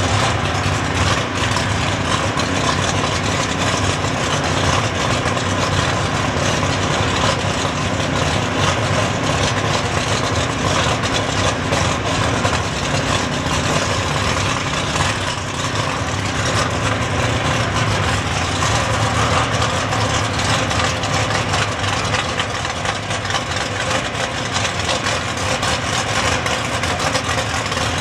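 Drag race car's engine idling steadily, loud and even, without revving.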